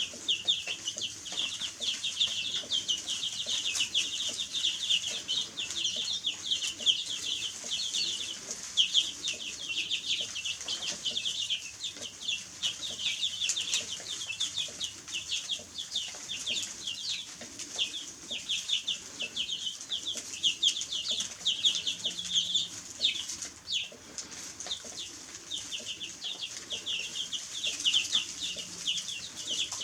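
Many baby chicks peeping together: a dense, continuous chorus of short high chirps, over a steady high hiss.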